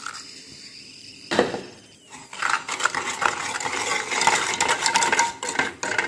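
Wire whisk beating cake batter by hand in a stainless-steel bowl, the wires rapidly clattering and scraping against the metal. It starts after a quieter opening and a single knock about a second in.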